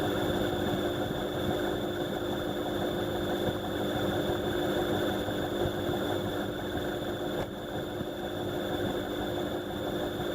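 Indesit washing machine running, heard through the door glass: a steady motor hum with a constant mid-pitched whine and a fainter high tone over the churning noise.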